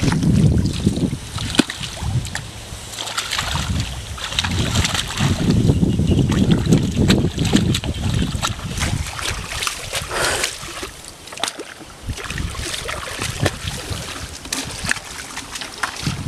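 Hands splashing and sloshing in shallow muddy canal water, in uneven bursts of short splashes, with wind rumbling on the microphone.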